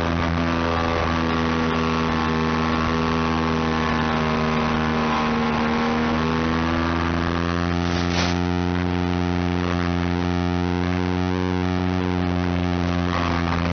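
Steady droning hum of an FPV aircraft's electric motor and propeller, heard through the onboard camera's audio. Its pitch sags slightly in the middle and climbs back as the throttle changes, with a brief crackle about eight seconds in.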